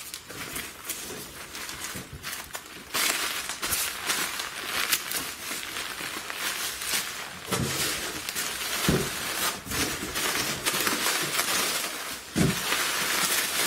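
Hands digging through styrofoam packing peanuts in a shipping box, a dense rustling and crackling, with a few dull knocks as things are set down.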